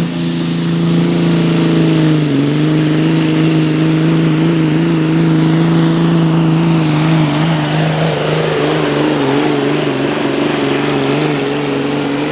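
A pulling semi truck's diesel engine held at high revs under load while dragging the weight sled, its pitch steady with slight wavering. Over it, a high turbo whistle rises over the first two seconds and then holds.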